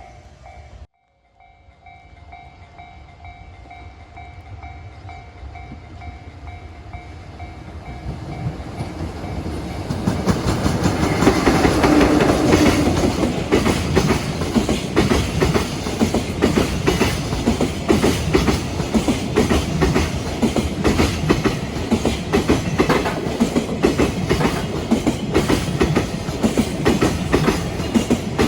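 A level-crossing warning bell rings with a steady pulsing tone, then a freight train comes up and passes close by. It grows louder over the first ten seconds, and its wheels then clack rapidly and continuously over the rail joints.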